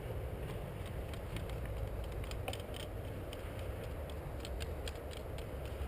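Muffled rumble of a player moving quietly, with scattered faint clicks and ticks of gear and footsteps. None of the clicks stands out above the rest.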